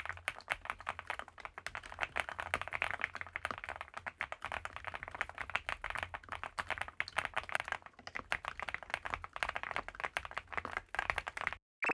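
Fast typing on an Infi75 mechanical keyboard, gasket-mounted and packed with foam, with PBT double-shot keycaps: a dense, continuous run of keystroke clacks, the muted 'koto-koto' sound the board is built for. Near the end the typing stops and a brief falling tone sweeps down.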